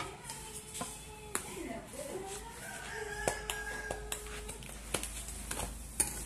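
A rooster crowing in one long call that wavers and then holds steady for about two seconds, starting around two seconds in. Scattered light clicks and rustles come from plastic packaging being handled.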